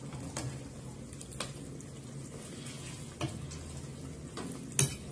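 A ladle stirring thick, simmering chicken curry in a pan, with a soft sizzle. The ladle knocks and scrapes against the pan a few times, sharpest near the end.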